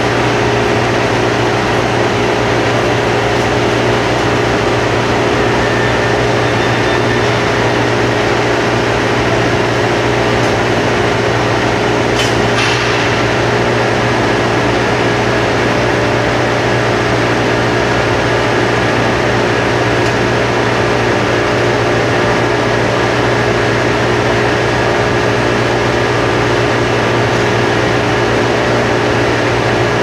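Steady, loud industrial drone of the machinery around an aluminium holding furnace: a constant low hum with a higher steady tone over a dense hiss, unchanging throughout. One short click comes about twelve seconds in.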